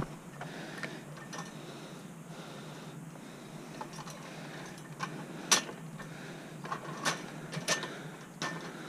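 Wire bicycle basket rattling and clicking as it is handled, with a few sharp knocks about halfway through and several more near the end.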